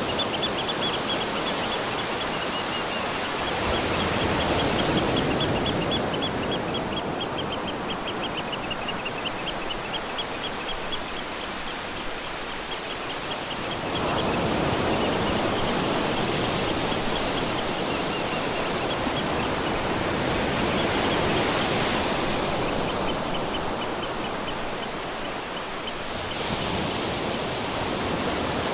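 Ocean surf washing steadily, swelling and easing every several seconds. A small animal chirps in fast high series through the first half and again near the end.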